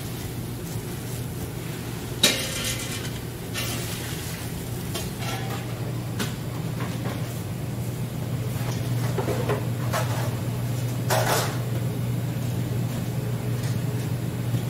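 Large wok of water at a rolling boil over a steady low hum, with metal cookware clanking sharply about two seconds in and again around eleven seconds, and a few lighter knocks between.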